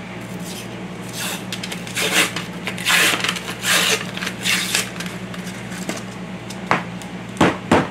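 Paper label being peeled and torn off a cardboard tube of refrigerated biscuit dough, in several rustling tears, followed near the end by a few sharp knocks and clicks as the tube is handled.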